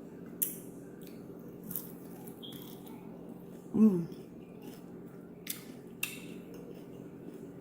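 Close-up eating sounds of fried chicken wings being chewed: a few short, crisp smacks or crunches, and a brief voiced "mm" about halfway through, over a steady low hum.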